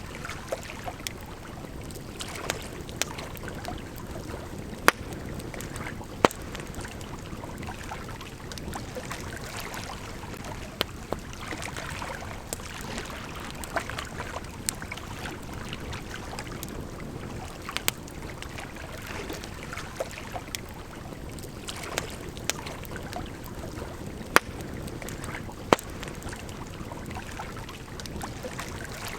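Campfire crackling with sharp pops scattered through, the loudest a few at a time, over the steady rush of a gently flowing river.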